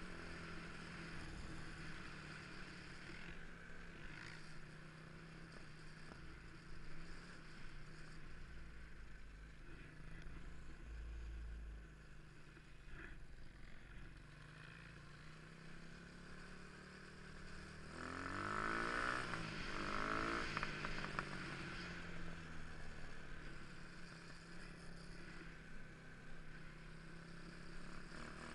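Motorcycle engines running while riding. About two-thirds of the way through, one engine revs up and back down and is louder for a few seconds.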